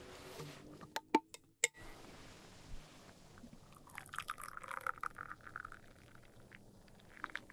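Hot black tea poured from a stainless steel vacuum flask into a cup, a stream of liquid starting about four seconds in and lasting about a second and a half. Three sharp clicks come about a second in as the flask is opened.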